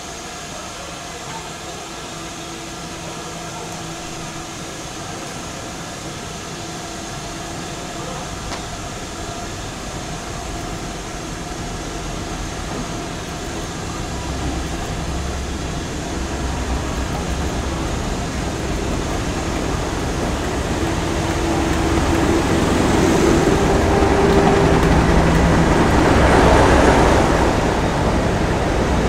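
Diesel locomotive's engine running as it approaches at low speed, a steady drone growing gradually louder and loudest near the end as it passes close by.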